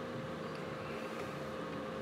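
Steady background noise with a faint continuous hum and no distinct event.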